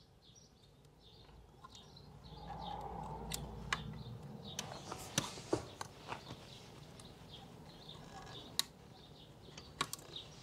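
Metal pick tip clicking and scraping against a plastic-chromed badge while prising out its faded red plastic colour insert: a handful of small, sharp, irregular clicks over a faint background.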